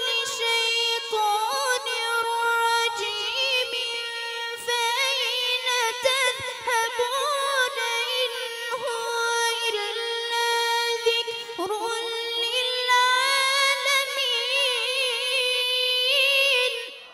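A boy reciting the Quran in a melodic, ornamented style: long drawn-out high phrases held around one pitch with wavering embellishments and runs, breaking off suddenly near the end.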